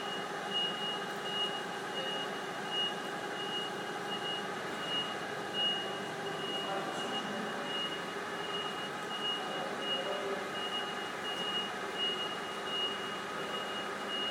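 Forklift lifting a boat hull out of its mould: a steady machine hum with a high warning beep pulsing at an even pace.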